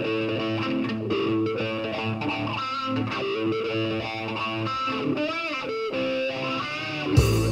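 Rock music played back through Bang & Olufsen Beolab 8000 loudspeakers: an electric guitar with effects plays a melodic line with several pitch bends, and about seven seconds in a loud distorted chord with heavy bass comes in.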